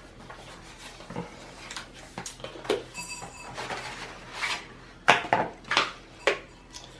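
Packaging of a new solid state drive being handled and opened by hand: a string of light clicks, taps and rustles, with several louder sharp knocks about five to six seconds in.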